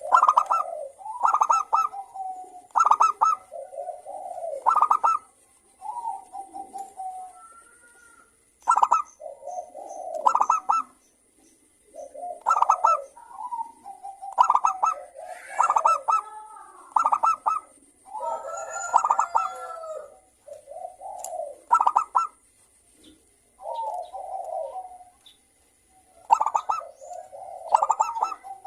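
Zebra doves (perkutut) cooing, phrase after phrase of rapid stuttering coo notes with short pauses between them.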